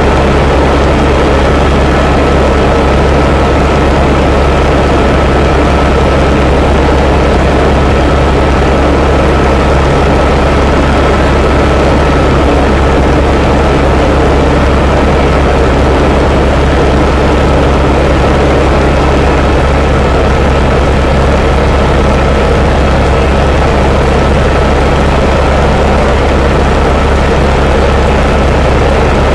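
Helicopter in flight: a loud, steady drone of the rotor and turbine engine, with a constant high whine running through it.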